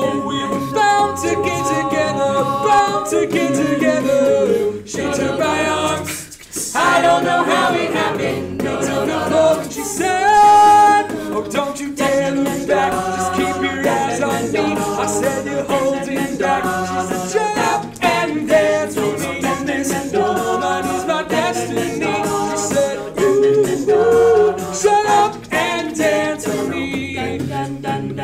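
Mixed a cappella group singing the song's instrumental break in wordless syllables over beatboxed vocal percussion and a sung bass line, with a brief drop about six seconds in before the full group comes back in.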